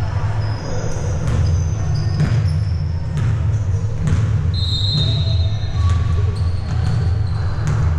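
Basketball bouncing on a hardwood gym floor in an echoing hall, with irregular bounces about once a second and short high sneaker squeaks during live play. A steady low rumble runs underneath.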